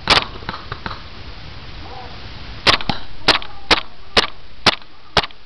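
Airsoft pistol shots: one sharp crack at the start, then after a pause a string of six more, about two a second.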